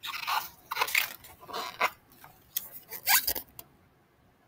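Paper rustling in several short crackly bursts, the sound of a picture book's page being turned, then quiet for the last second.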